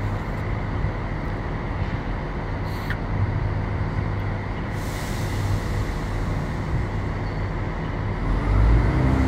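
Steady rumble and hum of an idling train engine at a railway station, with a faint high whine; a hiss rises about halfway through and the low rumble grows louder near the end.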